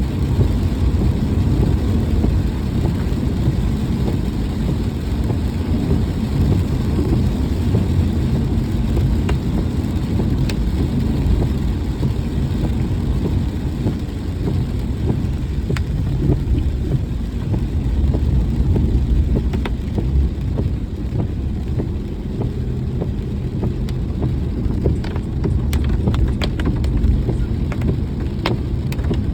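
Car driving in the rain: a steady low rumble of road and engine noise, with a few sharp ticks near the end.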